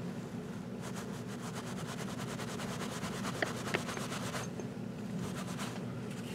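Paper towel patting and rubbing on the aluminium slide of a Sig Sauer 1911-22 to dry freshly applied aluminium black touch-up: a run of soft, quick rustles starting about a second in, with a couple of light clicks, over a steady low hum.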